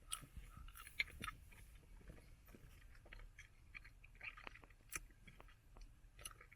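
Faint, wet clicks and smacks of bubble gum being chewed in the mouth, with a few sharper snaps about a second in and again near the five-second mark.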